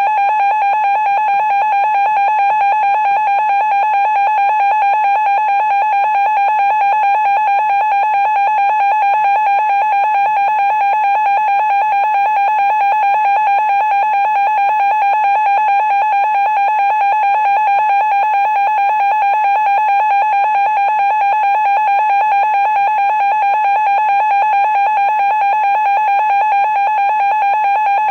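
Emergency Alert System attention signal, a loud, steady, shrill two-tone beep (853 and 960 Hz) sounding without a break. The tone has been left on the air in a failed severe thunderstorm warning broadcast.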